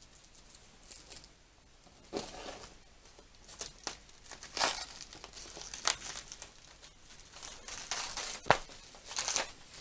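Packaging being unwrapped by hand: irregular crinkling and tearing rustles with a few sharp clicks and knocks, the sharpest about halfway through and again near the end.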